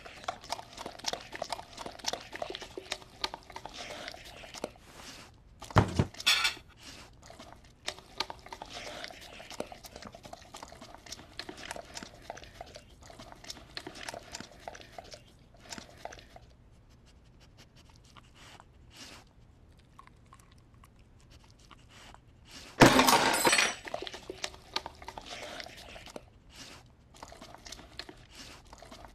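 A large dog eating off plates on a dining table: wet chewing and lapping, with dishes and cutlery clinking and scraping. There is a sharp thump about six seconds in and a louder clatter lasting about a second near the twenty-three-second mark.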